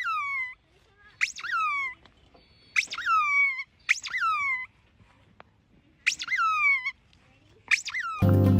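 Six high-pitched cries from a small animal, each starting sharply and falling in pitch over about half a second, at uneven intervals. Music starts just before the end.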